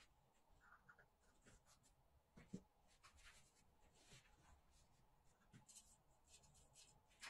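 Near silence with faint handling noise: paper rustling under the hands and small clicks as a jar and a metal sieve are moved on the table, the loudest a small knock about two and a half seconds in.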